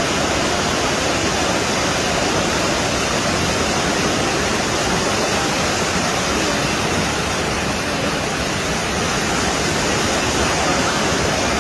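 Muddy flash-flood water rushing in a steady, unbroken torrent, carrying mud and debris.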